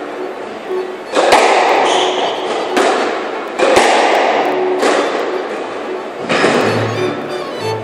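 Squash ball being struck back and forth in a rally: about five sharp hits of racquet and ball on the walls, roughly a second or more apart, each ringing in the enclosed court.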